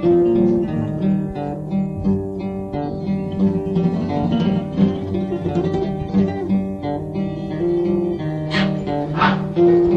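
Acoustic guitar playing an instrumental melody over bass notes. Near the end come two short, sharp sounds less than a second apart.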